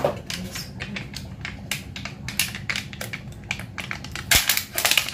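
Crinkling and crackling of the foil-and-plastic wrapping of a Golden Curry roux block as it is handled and torn open, in a dense run of sharp crackles that grow louder near the end. A steady low hum lies under it.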